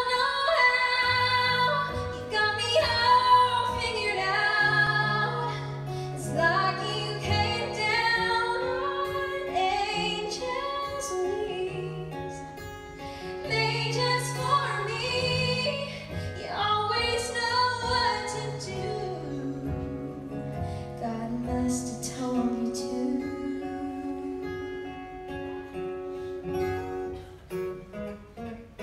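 A woman singing live with a backing band, her voice carrying the melody over guitar and held bass notes, recorded from the audience seats of a large hall.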